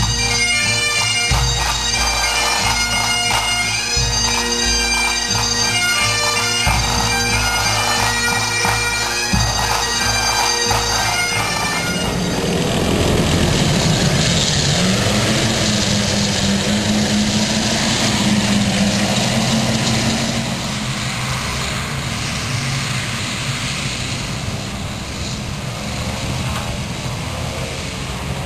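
A pipe band plays bagpipes over a steady drone with regular bass-drum beats. About twelve seconds in, this gives way to a light tank's engine running as it drives; the engine note rises, holds for a few seconds, then eases off.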